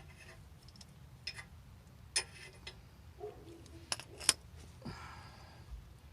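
Scattered sharp clicks and clinks of tools and parts being handled, about five in all. A short scraping rustle follows about five seconds in.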